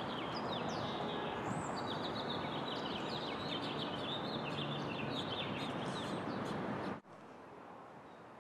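Many small birds chirping over a steady outdoor background noise. The sound cuts off abruptly about seven seconds in, leaving a quieter, even background hum.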